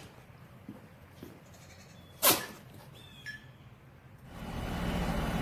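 An animal sneezing once, a single sharp burst a little over two seconds in.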